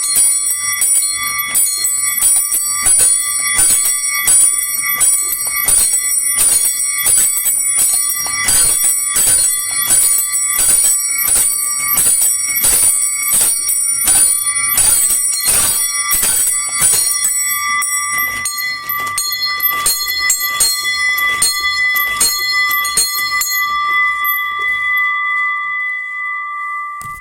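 Small bells of a home miniature bell tower rung in a rapid scampanio (festive chiming), about two to three strikes a second with several bells ringing at once. Near the end the strikes thin out and stop, leaving the bells' high tones to ring on and fade.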